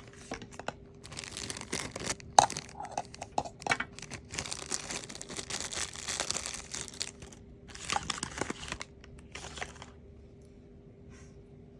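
Plastic and paper packaging crinkling and tearing as a toy is unboxed by hand, with irregular rustles and sharp snaps, one louder snap a couple of seconds in. The handling stops about ten seconds in.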